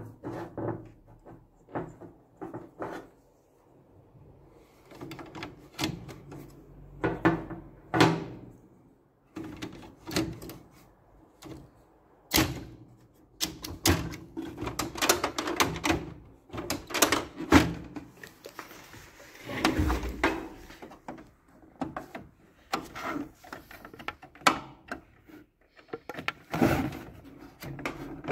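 Irregular plastic clicks, knocks and rattles from a Canon Pixma G3411 inkjet printer being handled by hand, as the black print head cartridge is fitted back into its carriage and the printer's parts are pressed and closed.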